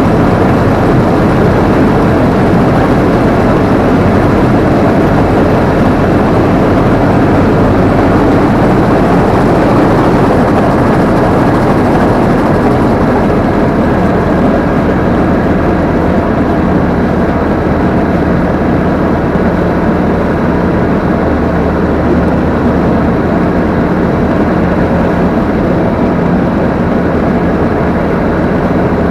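Combine harvester running steadily, its engine and threshing machinery making a loud, continuous drone, heard from the operator's position. The low hum shifts a couple of times as the load changes.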